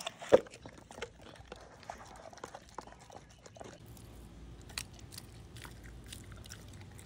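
Dogs eating a raw-food meal from their bowls: wet chewing and biting with many small scattered clicks, and one sharp knock just after the start.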